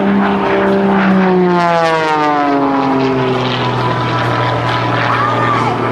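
Extra 300 aerobatic plane's Lycoming IO-540 engine and propeller running loud. Its note slides down in pitch about two seconds in, then holds steady and lower.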